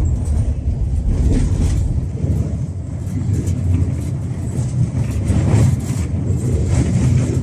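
Tram running along its track, heard from on board: a steady low rumble with scattered sharp clacks and rattles.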